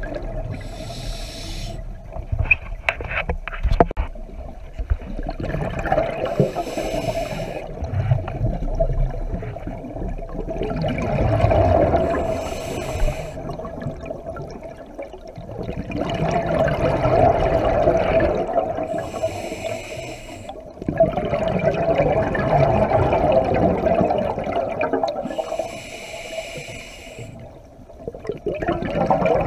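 Scuba regulator breathing underwater: five short hissing inhales, about every six seconds, each followed by a stretch of exhaled bubbles gurgling, over a steady tone.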